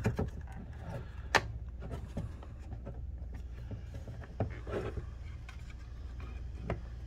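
Handling noises from an external hard drive's enclosure being worked apart by hand: a sharp click about a second and a half in and a few softer knocks and scrapes of plastic and metal parts, over a steady low hum.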